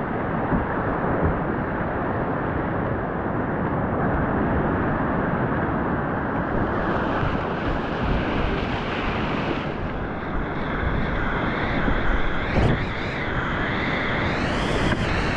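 Whitewater rapids rushing loudly and steadily around a kayak running them, heard close up from the boat and muffled.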